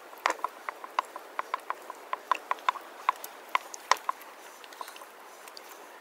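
Wooden spoon knocking against a glass mixing bowl while stirring a wet mixture, in quick light taps of about four a second that thin out after about four seconds.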